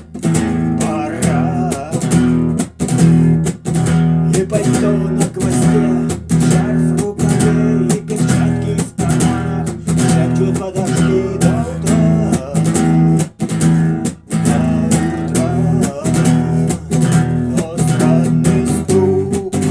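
Acoustic guitar strummed in a steady rhythm, playing the chords of a rock song.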